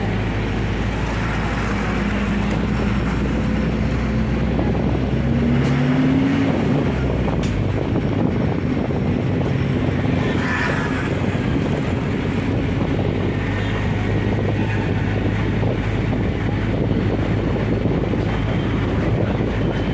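Vehicle engine running with road noise and wind buffeting the microphone, heard aboard a moving vehicle in traffic; the engine pitch rises briefly about six seconds in.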